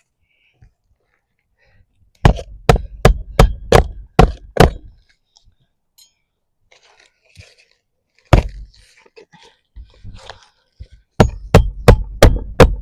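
Hand hammer driving roofing nails into asphalt shingles: a quick run of about seven strikes, a single strike, then another run of strikes near the end.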